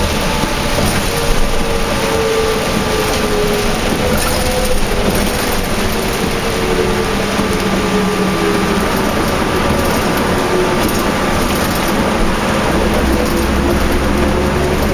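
Onboard sound of a 2004 New Flyer D40LF transit bus with a Cummins ISL diesel and a ZF automatic transmission, under way in heavy rain. Its whine dips in pitch through the middle and rises again near the end, over steady road and rain noise.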